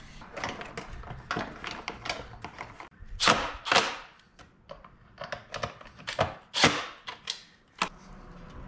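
Clicks and knocks of a plastic scooter fuel tank and its fittings being handled and fitted into the frame, with several louder short knocks.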